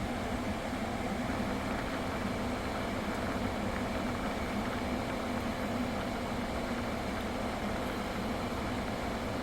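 Kia K5 idling steadily with its air conditioning running: an even hum of the engine and cooling fan while the AC system is charged with refrigerant and compressor oil.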